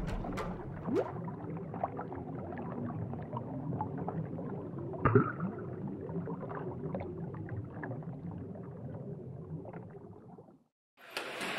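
Muffled underwater bubbling and gurgling with scattered knocks, the dull sound of a diver's air heard under water. It fades out near the end.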